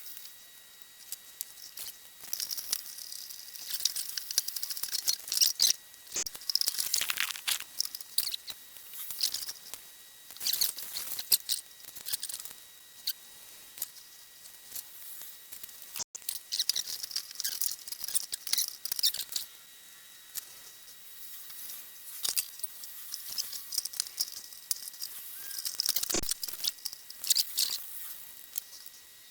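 Irregular small clicks, taps and scratchy rustles of hands handling small tools and parts at a workbench, coming in short runs with brief pauses between them.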